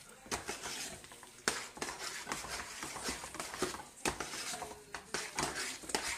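Metal utensil vigorously beating mashed potato in a stainless steel pot: quick, irregular scrapes and clinks against the pot's sides as the purée is worked smooth.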